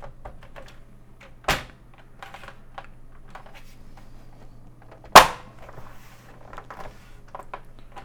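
Commodore 128's plastic case halves being snapped back together: a sharp snap about a second and a half in and a louder one about five seconds in, with small clicks and handling noise of the case between.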